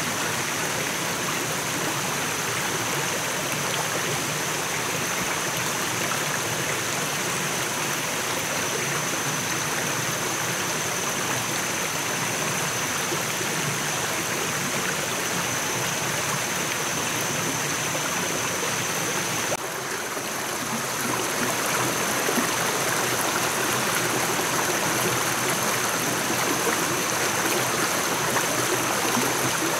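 Forest stream running over rocks: a steady rush of water that grows louder about twenty seconds in. A steady high-pitched tone sits above it.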